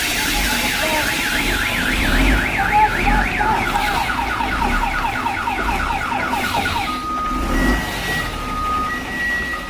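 An electronic siren-type warning sounder warbling rapidly up and down, switching about seven seconds in to alternating high and low beeps, with the low rumble of a truck's engine underneath.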